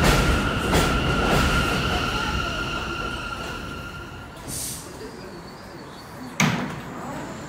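Bombardier R179 subway train braking to a stop at the platform: a steady high whine fades away as it halts, followed by a short hiss of air and a sudden clunk near the end.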